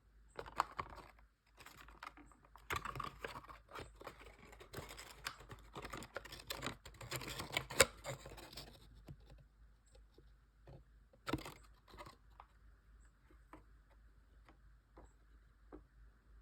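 Hands handling a toy's packaging box: irregular clicks, taps and rustling, busiest for the first nine seconds or so, then a few scattered clicks.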